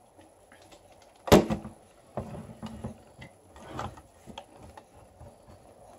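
Hard plastic clicks and knocks from handling a Spin Master BB-8 toy's ball body and its charging cable, with one sharp knock about a second in, louder than the rest, then a run of smaller clicks and rubbing.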